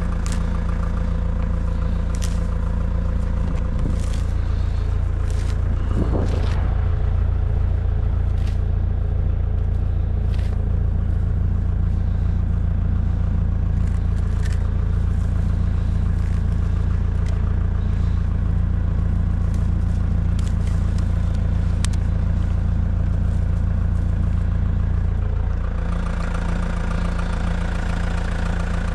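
Tractor engine running steadily, with scattered clanks and scrapes from the bale forks and loader over it.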